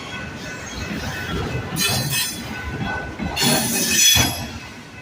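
Freight train rolling past, its steel wheels grinding along the rail with a thin, steady squeal. The noise swells twice, briefly about two seconds in and more strongly between three and a half and four seconds.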